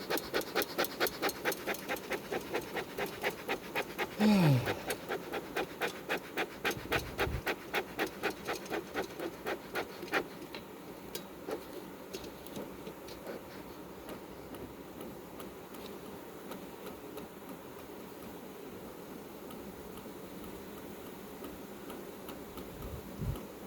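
Bee smoker's bellows pumped in quick even puffs, about three a second, to get the smoker going; the puffing slows and fades out after about ten seconds. A short falling tone about four seconds in is the loudest sound.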